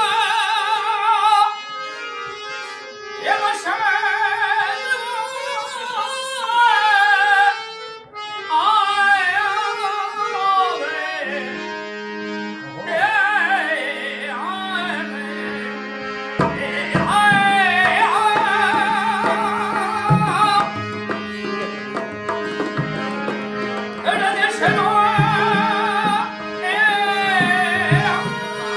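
Rajasthani folk song: a man sings long, ornamented, wavering lines over held harmonium notes. A dholak drum comes in with a steady beat about halfway through.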